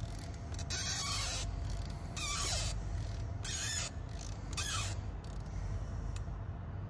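Ratchet of a digital torque wrench clicking in four short bursts about a second apart, as it is swung back and forth to tighten a new diesel glow plug to its torque setting.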